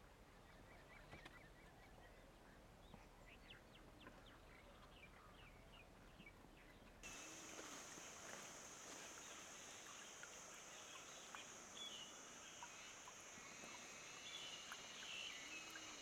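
Faint outdoor field ambience. At first there are only scattered faint chirps. About seven seconds in, the sound changes abruptly to a steady high-pitched whine with faint bird-like calls and two short low calls.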